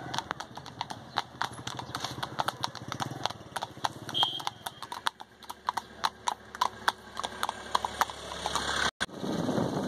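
Hooves of several horses clip-clopping on an asphalt road as they walk past, a quick irregular patter of hard strikes. Near the end it cuts off and a steady rushing noise takes over.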